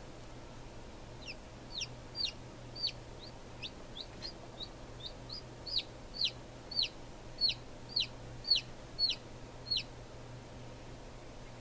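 A chick peeping: a string of short, falling peeps, about two a second, growing louder about halfway through, over a low steady hum.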